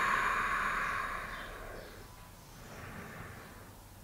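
A long audible breath out that fades away over about a second and a half, followed by a fainter breath, from a person resting in a lying yoga twist.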